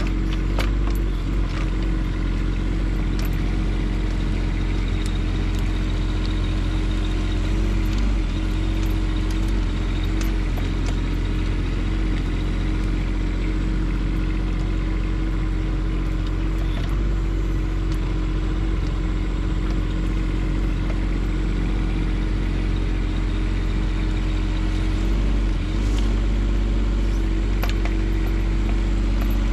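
Bobcat E10 mini excavator's three-cylinder diesel engine running steadily while digging, its pitch dipping briefly about three times. Scattered clicks and knocks from the bucket working the dirt sound over it.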